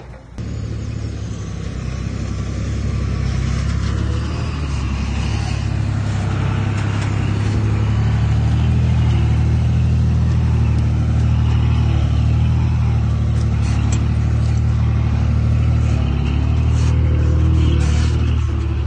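Heavy earthmoving machine's diesel engine running steadily, growing louder over the first several seconds, with a few short metallic clicks near the end.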